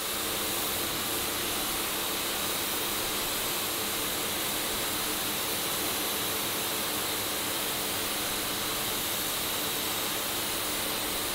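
Karcher K2 electric pressure washer running and spraying its jet onto a muddy concrete driveway: a steady, unbroken hiss with a low, even hum underneath.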